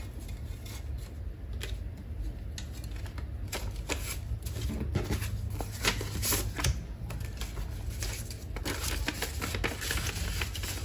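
Paper banknotes rustling and a laminated cash envelope crinkling as bills are pulled from a plastic sorter and slipped into the envelope: a run of short, crisp rustles and light taps over a steady low hum.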